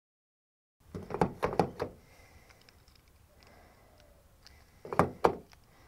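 A quick run of about five sharp knocks or clunks, then two more a few seconds later.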